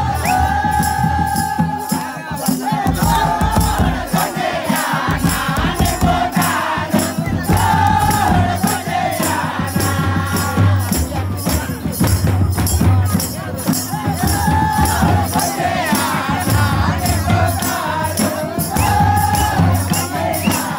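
Group of voices singing a Mundari devotional song (bhajan), with barrel hand drums and a steady rattling beat.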